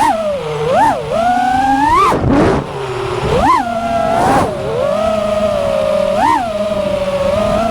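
FPV quadcopter's brushless motors and propellers whining, the pitch surging up and falling back sharply several times as the throttle is punched and cut, then holding a steadier whine through the second half.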